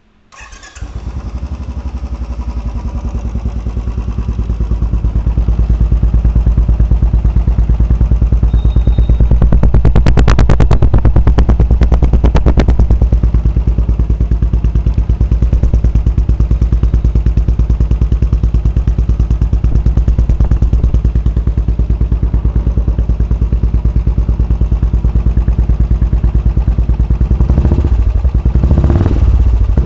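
Royal Enfield Classic 350 single-cylinder engine breathing through a Red Rooster aftermarket performance exhaust, starting about half a second in and then running at idle with an even, rapid thump. The throttle is blipped a little around ten to thirteen seconds in and again near the end.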